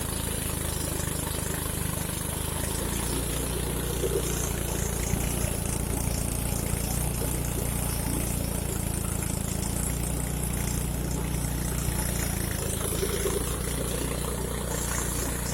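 Engine-driven rice threshing machine running steadily, with an even engine drone and no change in speed.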